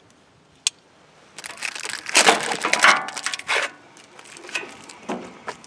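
Plastic wrapping being handled and torn off a new Kohler engine's Quad-Clean air cleaner: a short click, then about two seconds of loud crinkling and tearing, with a few smaller rustles near the end.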